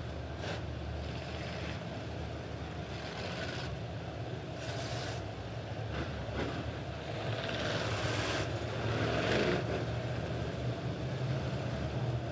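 Several Midwest Modified dirt-track race cars' engines running at slow caution speed as the field circles the oval, the sound swelling and fading as cars pass, loudest about eight to ten seconds in.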